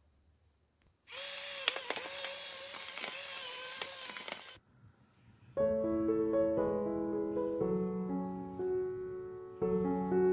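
Background music of slow, sustained keyboard notes begins about halfway through. Before it, a loud hiss carrying a wavering tone and a few clicks runs for about three and a half seconds and cuts off suddenly.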